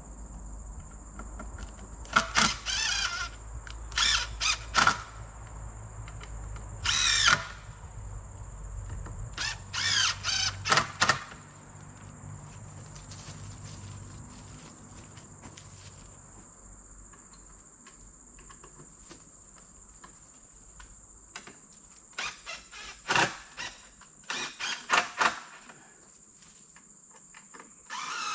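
Short, sharp squeals in clusters, several times over, from the wooden pipe reel and its coil of black poly water line being turned and handled. A low engine rumble sits underneath and fades out about halfway through.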